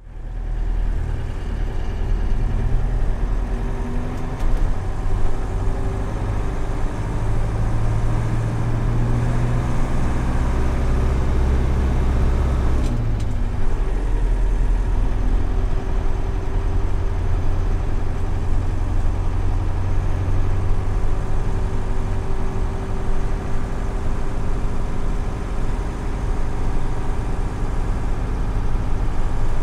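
Mercedes 608D truck's diesel engine running under way, with steady engine drone and road noise. About thirteen seconds in, the engine note climbs and then drops as it shifts up a gear.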